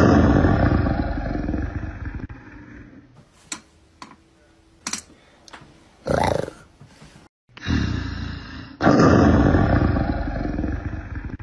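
A recorded big-cat roar, loud and rough, at the start, fading over about three seconds. The same roar comes again from about eight seconds in. Between them there are a few clicks and a brief, higher-pitched cry about six seconds in.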